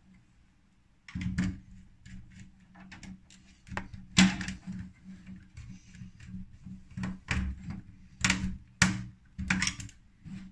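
Irregular sharp clicks and knocks of wires and a screwdriver being worked into the plastic terminals of a DIN-rail emergency-lighting remote-control module, loudest about four seconds in and in a quick pair near the end. A faint steady low hum runs underneath.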